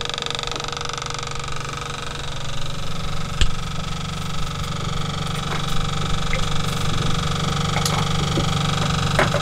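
A small motor running with a steady, even hum, with a few sharp clicks and knocks over it, the loudest about three and a half seconds in.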